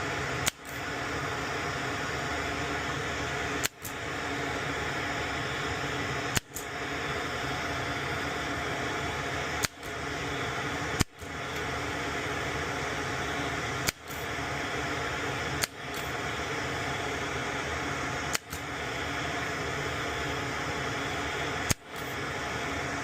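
Steady fan-like whoosh from a small blower, broken by sharp clicks every one and a half to three and a half seconds, each followed by a brief dip in the noise.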